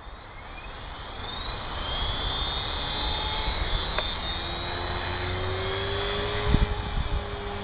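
Electric RC helicopter with a brushless motor spooling up from rest: a rising motor whine and growing rotor noise over the first couple of seconds, then a steady whir as it hovers. A short low bump comes about six and a half seconds in.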